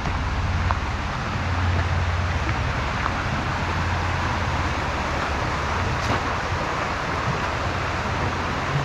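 Steady rush of flowing water from the stream running beneath a working water-powered grist mill, with a steady low rumble underneath.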